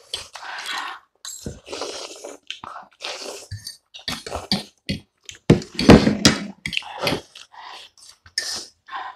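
People slurping and chewing instant ramen noodles, a quick run of short wet slurps and mouth noises, with forks now and then clinking and scraping on china plates. The loudest slurps come about halfway through.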